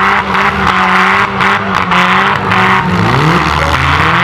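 Several demolition-derby cars' engines running hard and revving together, their pitch rising and falling over a loud noisy rush.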